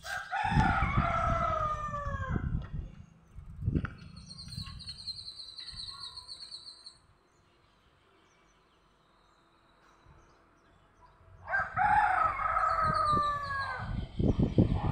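A rooster crowing twice, each a long cock-a-doodle-doo of about two and a half seconds that falls in pitch: once at the start and again about eleven seconds in. A high, even trill sounds in between, and low rumbling noise on the microphone runs under both crows.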